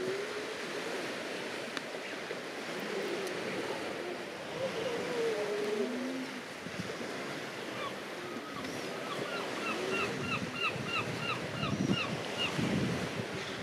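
Grey seals moaning in long, wavering, howl-like calls (seal "singing") over a steady wash of surf and wind. In the last few seconds a bird gives a quick run of short repeated notes, about three a second.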